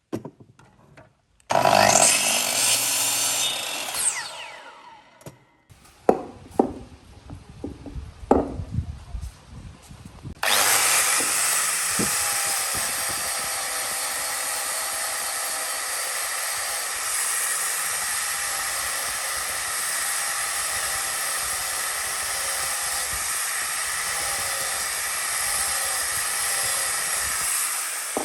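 A power tool working wood: a short run of about two seconds with its pitch sweeping up and down, then a series of sharp knocks, then a long, steady run starting about ten seconds in.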